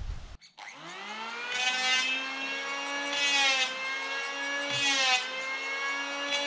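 A small motor's steady whir that starts just after a cut, climbs in pitch for about a second as it spins up, then holds with slight swells and dips in pitch.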